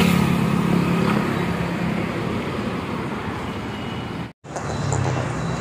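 Road traffic, with a motorcycle engine running close by at first and then fading into general traffic noise. The sound cuts out completely for a moment about four seconds in.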